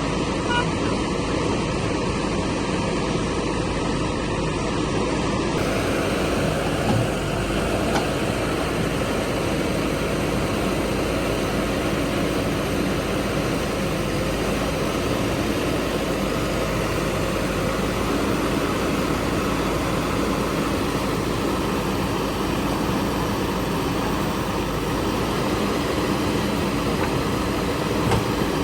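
Diesel engines of a backhoe loader and tractors running steadily while the machines work.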